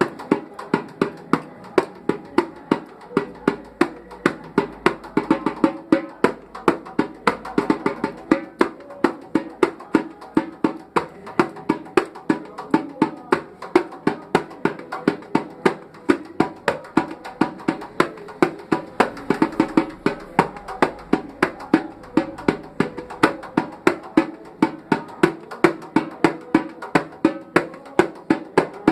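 Batucada, Brazilian samba percussion, playing a fast, steady rhythm of sharp strokes.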